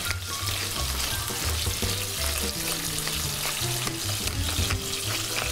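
Rabbit pieces and a chopped herb mix browning in oil in a pan, sizzling steadily.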